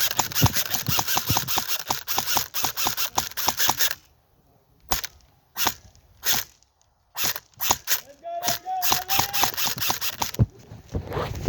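Quick, evenly repeating footsteps of a player moving on foot with gear, stopping about four seconds in. A quiet stretch follows with a few isolated sharp clicks, then the footsteps start again near the end.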